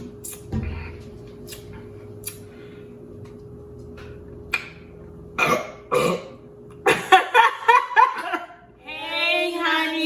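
Burps mixed with children's voices: a low burp about half a second in, short vocal bursts around the middle, a thicker cluster in the second half, and one long held vocal sound near the end.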